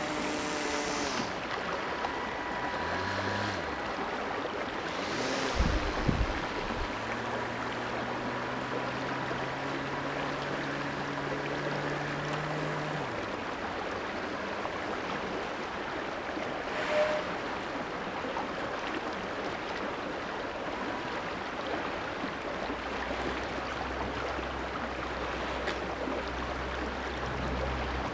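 Shallow creek water rippling steadily over riffles, with the electric motor and air propeller of a remote-control swamp boat humming faintly in and out, its pitch shifting as the throttle changes. A few low thumps come about six seconds in.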